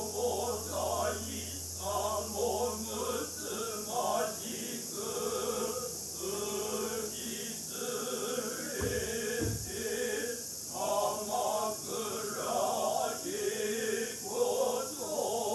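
Unaccompanied men's voices chanting Noh utai in unison, the jiutai chorus for a shimai dance, in long, wavering phrases.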